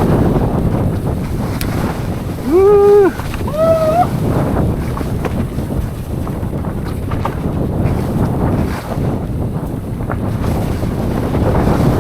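Wind buffeting the microphone of a mountain biker riding down a trail. About two and a half seconds in come two short hooted calls, the second rising at its end.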